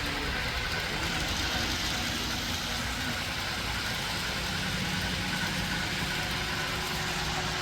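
Model trains running on a layout: a steady mechanical rumble and hum with a faint engine-like drone and a few held tones that come in after about four seconds.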